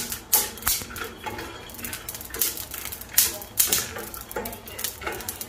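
Wooden spatula stirring njansa kernels and white peppercorns as they dry-toast in a stainless steel frying pan: the seeds rattle and scrape across the metal in irregular clicks and knocks.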